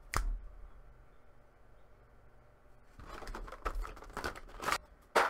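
Action-figure box packaging being opened by hand: a short click at the start, then crinkling and tearing rustles from about three seconds in, and a sharp click near the end.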